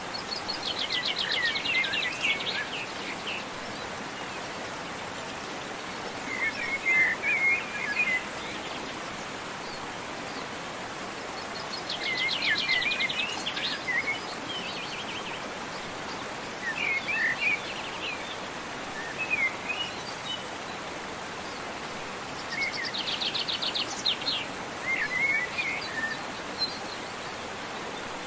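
Birds singing over a steady rush of waterfall. A fast, high trill comes three times, roughly every eleven seconds, and each trill is followed by short, twittering chirps.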